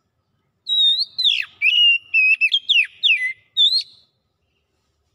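Oriental magpie-robin singing one phrase of clear whistled notes with quick downward slurs. The phrase starts just under a second in and lasts about three seconds.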